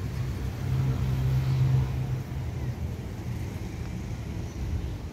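Road traffic from a nearby street: a motor vehicle's engine hum that swells about a second in and eases off after about two seconds.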